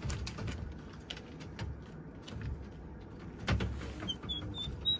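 Turkey poults in a wire-floored brooder: scattered light clicks and taps, with a sharper knock about three and a half seconds in. A few short, high peeps come near the end.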